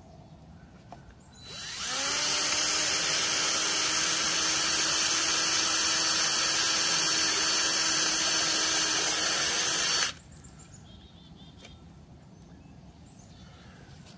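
Cordless drill with a 9/32-inch bit boring a hole into the edge of a beehive bottom board. The motor spins up about a second and a half in, runs at a steady whine for about eight seconds, and stops abruptly.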